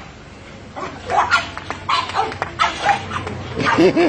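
Dogs barking in a fast run of short barks that starts about a second in, turning to higher yips near the end.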